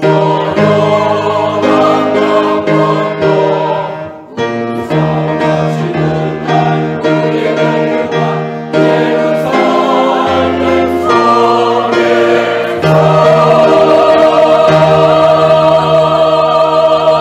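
Mixed-voice church choir singing the closing bars of an anthem with instrumental accompaniment. About 13 s in it reaches a long, loud final chord, held until it is cut off at the very end.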